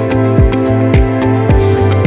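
Background music: sustained chords over a steady drum beat of about two hits a second.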